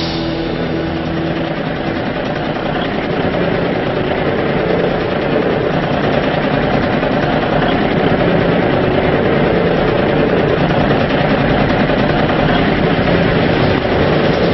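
Heavy truck's engine running hard in a steady, dense drone, growing a little louder after the first couple of seconds.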